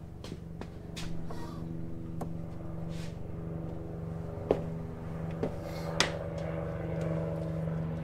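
Steady mechanical hum with a few sharp metallic clicks and clunks, about halfway through and again a second and a half later, as the steering is turned and the steering shaft's U-joint rotates.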